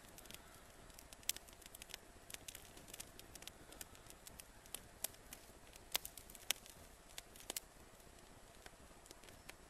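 Small fire of dry twigs crackling, with irregular sharp pops and snaps over a faint steady hiss.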